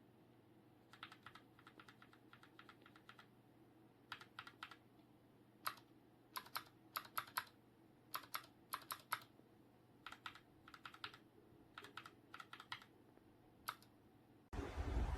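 Mechanical keyboard fitted with Gateron Milky Yellow Pro linear switches being typed on, keystrokes coming in short quick runs with pauses between. A much louder rushing noise cuts in near the end.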